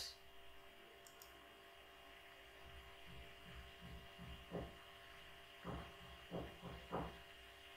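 Near silence: a faint steady electrical hum on the recording, with a few faint soft sounds in the second half.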